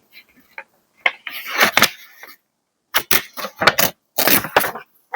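Paper crinkling and rustling as it is handled, in a few short bursts of crackles.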